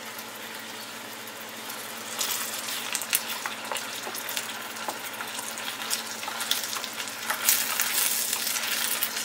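Chopped onions and ginger-garlic paste sizzling in hot oil in a stainless steel pan, with a wooden spatula scraping and stirring from about two seconds in. This is the paste being sautéed to cook off its raw smell.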